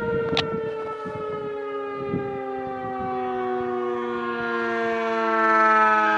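Federal Signal 2001-SRN outdoor warning siren winding down, its tone sliding slowly and steadily lower. It swells louder near the end, with a short click about half a second in.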